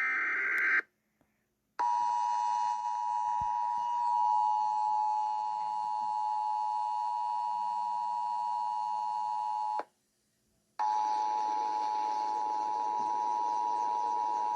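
Emergency Alert System broadcast: a brief harsh burst of the digital alert header, then the two-tone attention signal sounding steadily for about eight seconds. It stops for about a second and then starts again.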